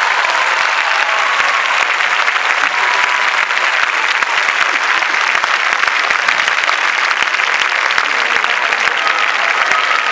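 Large concert audience applauding steadily: dense, continuous clapping at the close of a song.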